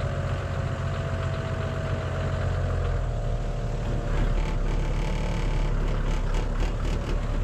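Toyota Land Cruiser 70-series engine running as the four-wheel drive pulls forward out of a hole that had lifted one wheel, the engine note changing about three seconds in. A few short knocks come near the end.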